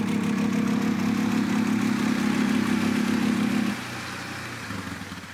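Quad bike (ATV) engine held at high revs under load in deep mud for nearly four seconds, then suddenly dropping back to a quieter, lower running.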